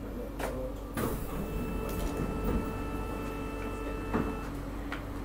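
C151A train doors and platform screen doors sliding open at a station stop: a clunk about a second in as they start to move, then a steady electronic tone for about three seconds while they open, and a knock near the end. Low train hum underneath.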